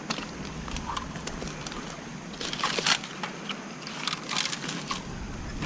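Crunching footsteps over gravel, twigs and dead leaves, in scattered crackling steps, with the busiest crunching about halfway through and again near the end.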